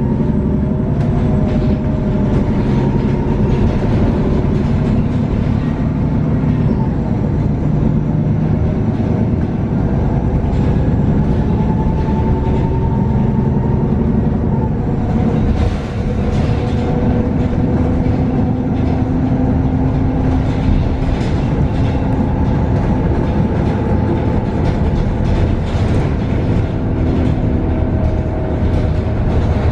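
Cabin of a 2019 Nova Bus LFS CNG city bus under way: its Cummins L9N natural-gas engine and Voith D864.6 automatic transmission run steadily, their note rising and falling in pitch with the bus's speed. Frequent rattles and knocks from the body and fittings come through over the road, more of them in the second half.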